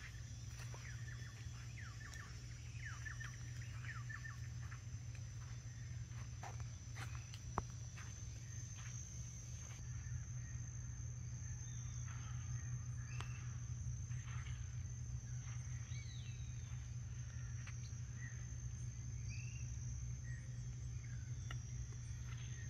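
Rural outdoor ambience: a steady high-pitched insect drone with scattered short bird chirps and calls, over a low steady hum. A single sharp click about seven and a half seconds in.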